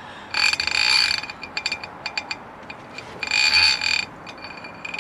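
Drain snake being reeled back out of a sewer pipe: two bursts of rattling, ringing whir about a second long, a couple of seconds apart, with scattered clicks between them.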